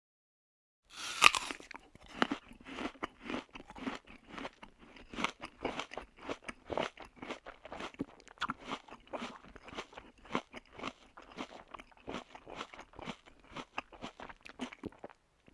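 A person biting into crunchy food with one loud crunch about a second in, then chewing it with steady crunching, about three crunches a second, stopping just before the end.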